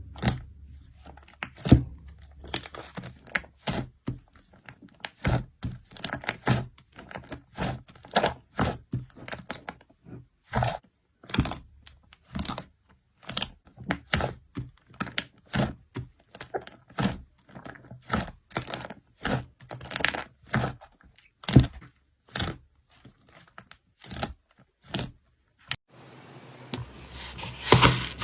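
Slime being squeezed and stretched by hand, giving a quick run of sharp clicks and pops, about two a second. It changes near the end to a steadier rubbing sound.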